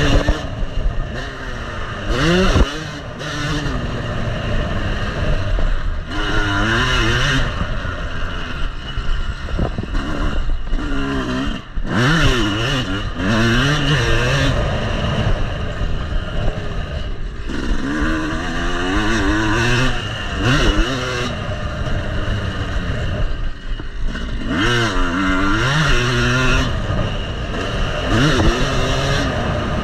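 Yamaha motocross bike's engine, heard on board, revving up and falling back again and again as the rider works the throttle around a dirt track.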